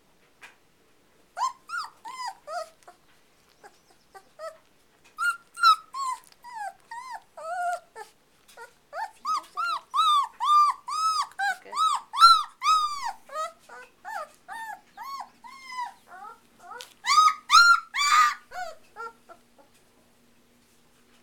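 Two-week-old puppy crying: a long run of short, high whines, each rising and falling in pitch, several a second, stopping shortly before the end.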